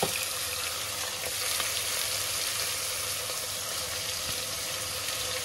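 Sliced onions sizzling steadily in hot oil with whole spices in a metal pot, just added to be browned. A light knock right at the start.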